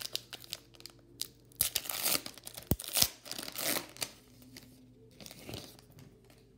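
Foil wrapper of a 2019 Topps Gold Label trading-card pack being torn open and crinkled by hand, in several short bursts over the first four seconds, then fainter rustling.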